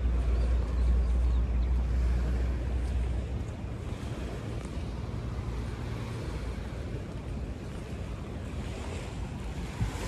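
Surf washing on the beach, with wind on the microphone. It is a steady hiss over a deep rumble that eases about three and a half seconds in.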